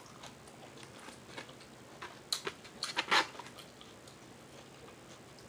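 Close-up mouth sounds of eating: a quick run of wet smacking clicks from chewing food, about two to three and a half seconds in, with quiet between.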